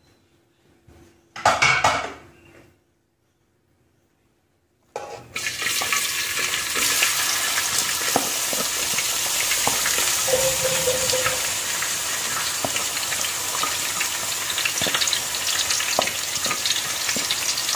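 Chopped onions hitting hot oil in a pan and sizzling loudly and steadily from about five seconds in, with the clicks and scrapes of a wooden spatula pushing and stirring them. A short sound comes about a second and a half in, before the sizzling starts.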